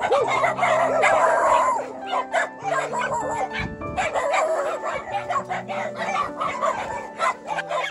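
Several sled dogs barking and yelping over steady background music.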